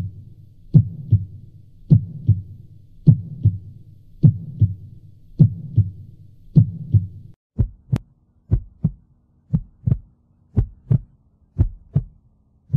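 Heartbeat sound effect: pairs of low thumps, about one pair a second, over a low steady drone. The drone cuts out about seven seconds in and the thumps go on alone.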